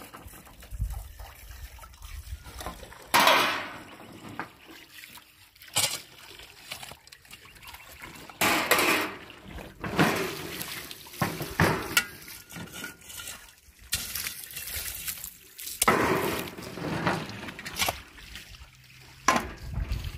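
Irregular strokes of a metal shovel scraping into dry, stony earth and tossing it, a few seconds apart. Water splashes from dishes being rinsed near the start.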